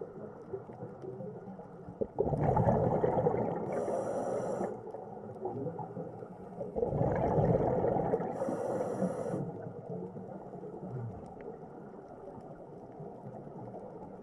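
A scuba diver breathing underwater through a regulator: two breaths about four and a half seconds apart, each a bubbling rush of exhaled air that ends with a short hiss.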